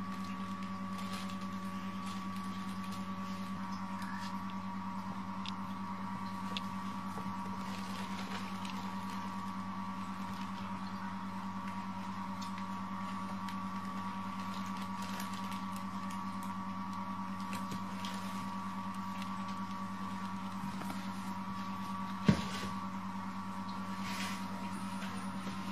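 A steady electrical-sounding hum throughout. Over it are faint scattered taps and rustles from kittens scampering and pouncing on a smooth floor around a fabric play tunnel. One sharp knock comes about 22 seconds in.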